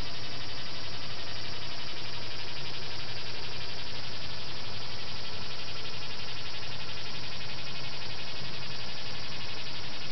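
A steady, even hiss with no distinct separate sounds standing out.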